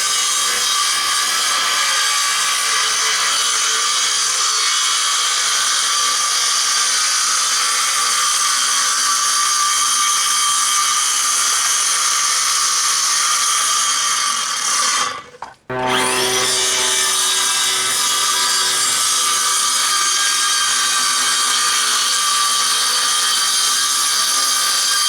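Hart power saw cutting plywood boards, its motor whining steadily. It stops briefly about fifteen seconds in, then spins back up and cuts again.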